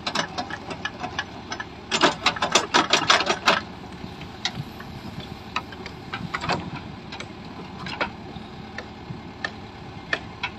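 JCB backhoe loader's diesel engine running steadily while the digger arm works, with a rapid clatter of sharp knocks about two seconds in and scattered single knocks after.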